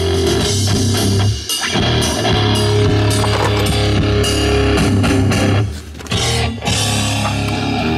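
Rock music with guitar and drums playing through the 1990 Corvette C4's stereo speakers, dipping briefly twice.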